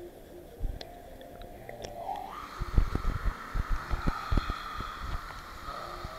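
Muffled underwater sound from an action camera held beneath the surface of a pool. About two seconds in the camera comes up into the air: water sloshes and splashes against it in a run of irregular knocks, over the steady rush of a small waterfall.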